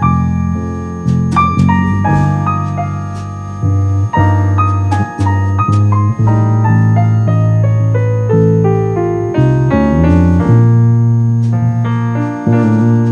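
Piano music: notes struck over a held bass line, with no singing.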